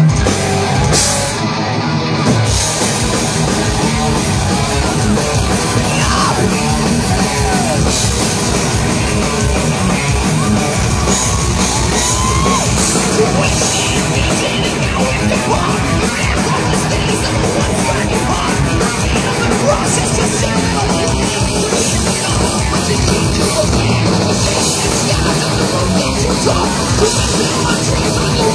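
Thrash metal band playing live at full volume: distorted electric guitars, bass and fast pounding drums, with yelled vocals.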